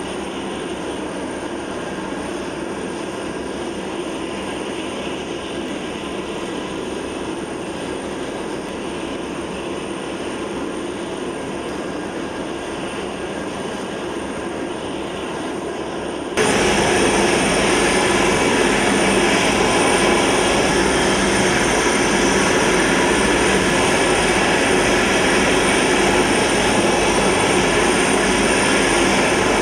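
Steady jet turbine noise from a parked C-5M Super Galaxy: an even rushing hiss with a thin high whine on top. It jumps suddenly louder about sixteen seconds in and then holds steady.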